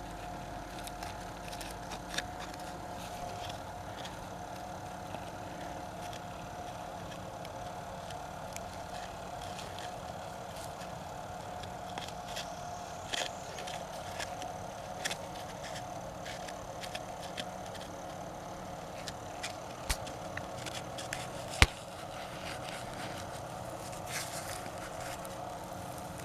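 Digging by hand in rocky, mica-bearing ground: scattered scrapes, small knocks and rustles of loosened stone and soil, with one sharp click about two-thirds of the way through, over a steady faint hum.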